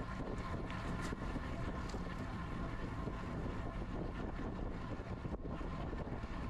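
Wind rushing and rumbling over a GoPro action camera's microphone on a moving road bike, mixed with tyre noise from the road, with a faint steady whine above it.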